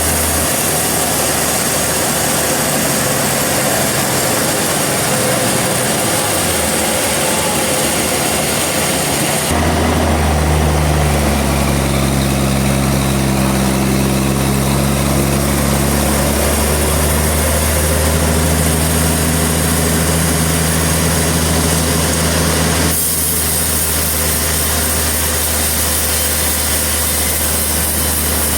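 A sawmill running: a steady, loud, engine-like drone from the mill's machinery. The sound changes abruptly about ten seconds in, when a low hum joins it and wanders in pitch, and changes again a few seconds before the end.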